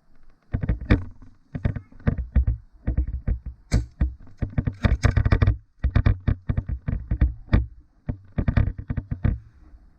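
Rapid, irregular knocks, clicks and rustles close to the microphone, with deep thumps, busiest in the middle: handling noise from a body-worn camera being jostled.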